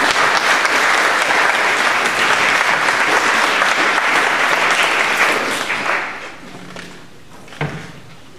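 Audience applauding, dying away about six seconds in, with a single knock near the end.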